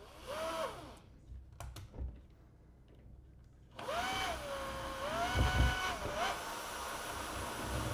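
Cordless drill driving a screw into plasterboard: a short burst of motor whine, then a longer run of about two and a half seconds whose pitch rises, holds, then climbs again before it stops.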